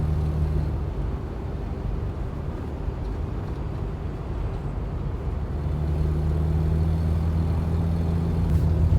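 Campervan driving, engine and road noise heard from inside the cab. A low engine drone eases off about a second in and comes back steady about six seconds in, over a constant road rumble.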